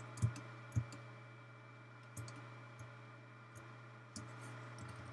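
About six or seven faint, irregularly spaced clicks from working a computer's input devices while editing, the first two the loudest. A steady low hum runs underneath.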